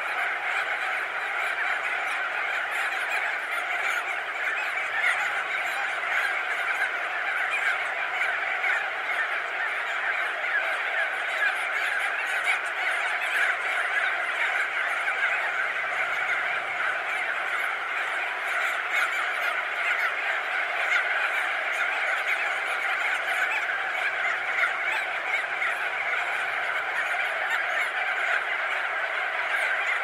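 Crested auklet colony: thousands of birds, perched and wheeling overhead, calling in a dense, unbroken chorus of overlapping calls at a steady level, heard at medium-close range.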